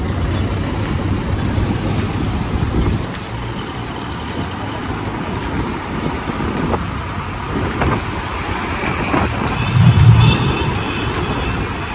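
Motorcycle riding through town traffic: a steady low engine and road rumble, stronger for the first few seconds. About ten seconds in, a louder low rumble swells briefly.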